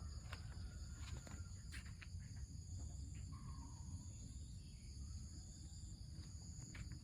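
Insects, crickets or cicadas, trilling steadily in high continuous tones, over a low rumble, with several sharp clicks in the first couple of seconds and again near the end.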